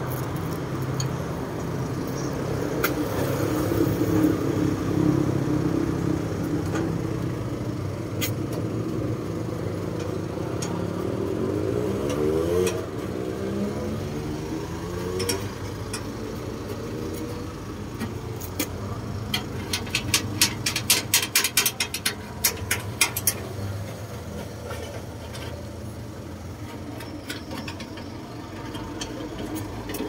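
Road traffic running steadily, with one vehicle passing close about twelve seconds in, its engine sound sweeping up and down in pitch. A little past halfway comes a quick run of sharp clicks lasting a few seconds.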